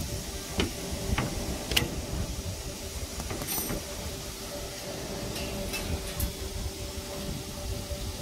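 CNC grinding machine's electric motors humming steadily, with three sharp metal clicks in the first two seconds and a few fainter ticks around the middle as parts are handled at the loading fixture.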